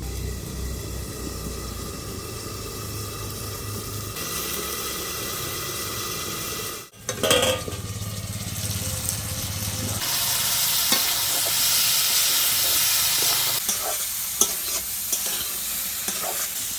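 Cauliflower and potatoes frying in spiced oil in a kadai, sizzling steadily. About seven seconds in there is a brief loud knock, and from about ten seconds the sizzle grows louder with scattered crackles.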